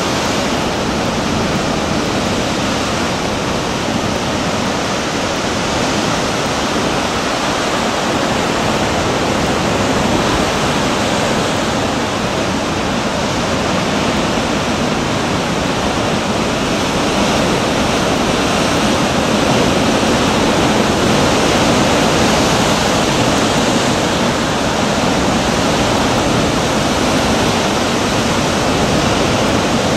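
Heavy ocean surf breaking over coastal rocks: a loud, steady rush of white water with no separate crashes standing out.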